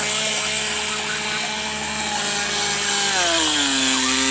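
Radio-controlled boat's motor running with a steady whine, then slowing about three seconds in, its pitch dropping.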